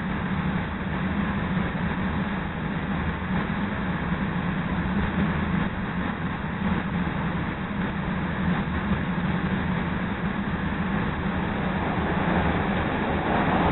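Steady hum and rumble of a CTA rapid-transit car standing at a station platform with its doors open.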